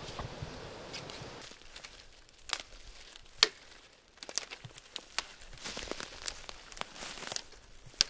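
Dry twigs snapping and crackling as they are broken by hand from a dead branch, with a sharp snap about once a second, the loudest about three and a half seconds in.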